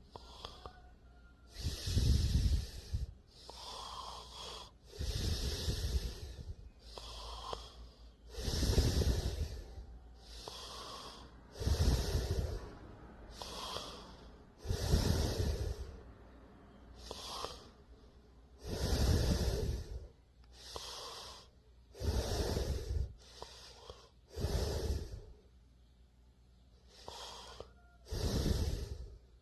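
A person snoring, with loud snores alternating with softer airy breaths in a steady rhythm of about one breath every three seconds.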